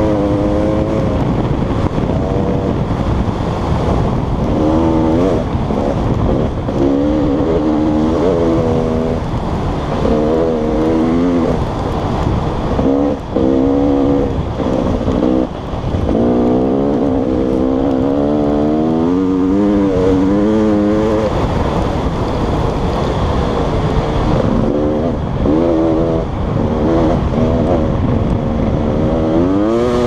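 Dirt bike engine revving up and down as the rider works the throttle and changes gear at speed on trail, its pitch climbing and falling again and again and briefly dropping off twice near the middle. Wind rush on the helmet-mounted microphone runs underneath.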